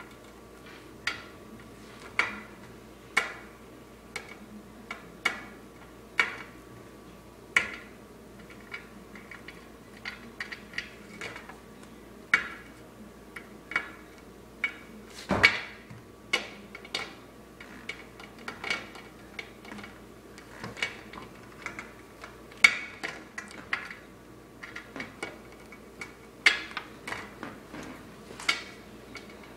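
Small plastic toy figurines set down one after another on a glass tabletop: sharp, irregular clicks and taps, roughly one a second, with a louder knock about halfway through.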